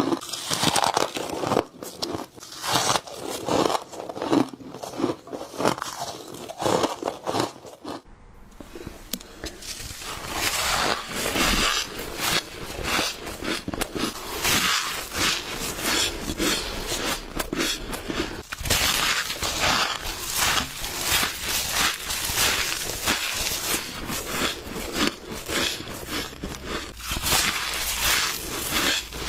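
Close-up biting and crunching of powdery frost ice, a rapid run of crisp crackly crunches with a brief lull about eight seconds in.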